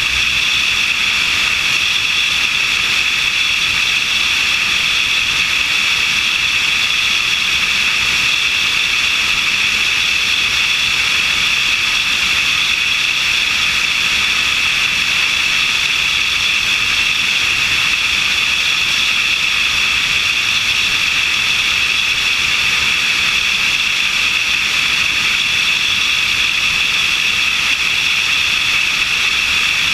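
Steady in-flight noise of a small airplane heard from a camera mounted on its wing: an even, unchanging rush of airflow and engine noise, mostly a high hiss.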